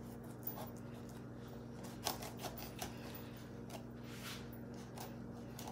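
Kitchen knife paring the tough rind off a wedge of pumpkin: faint, scattered scraping crunches and clicks.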